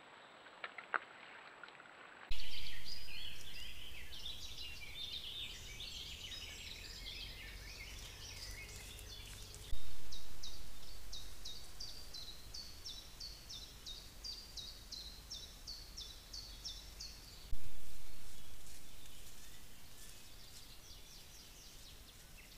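Woodland birdsong picked up by a trail camera's microphone, with a run of quick, evenly repeated short notes through the middle. Three times, a loud rush of noise begins suddenly and fades over several seconds.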